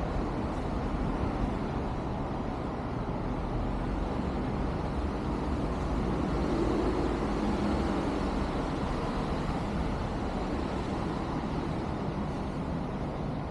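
Steady low rumble of road traffic, with a vehicle's engine hum swelling slightly about halfway through.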